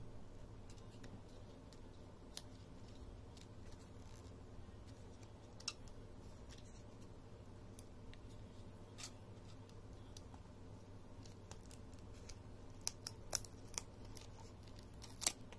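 Handling noise from foil tape and a foil-backed paper sheet being peeled off a 2.5-inch laptop hard drive: scattered small clicks and faint crinkling, with a quick run of sharper clicks near the end.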